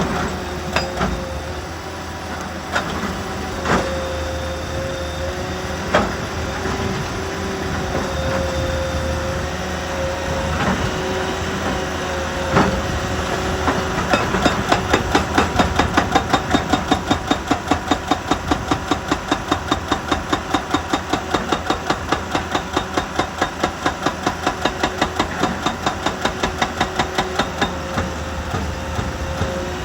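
Heavy machinery running with a steady whine and a few sharp knocks. From about halfway in it changes to a fast, even pounding of roughly three to four beats a second.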